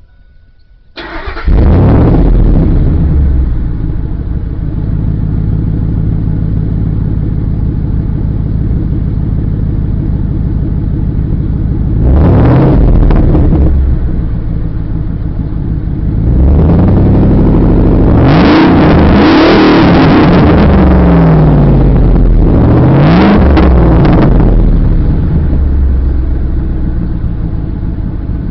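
Ford Lightning V8 pickup through a Magnapack muffler exhaust with an X-pipe and 18-inch tips, starting about a second in and settling into a loud, steady idle. The throttle is then blipped several times, the exhaust note rising and falling with each rev.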